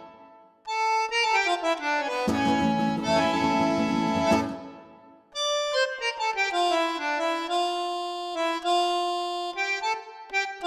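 Background accordion music: a melody over sustained chords, with brief drop-outs about half a second in and about five seconds in.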